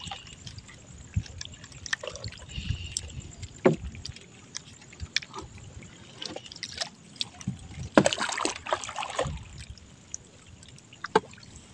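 Wet trammel net hauled hand over hand out of the water, with water dripping and splashing off the mesh and occasional knocks. There is a louder stretch of splashing about eight seconds in.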